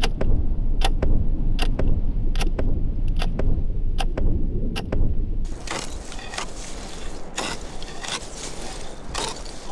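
Lake ice being chopped by hand to open a fishing hole: sharp blows in a steady rhythm, about one every 0.8 seconds, over a low rumble. About five and a half seconds in, the blows turn quicker and irregular, with chipping and scraping.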